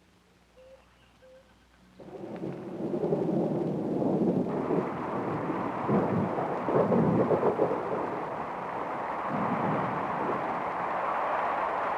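Heavy rain with thunder. It comes in suddenly about two seconds in, swells with deep rumbles near the middle, then holds as a steady downpour.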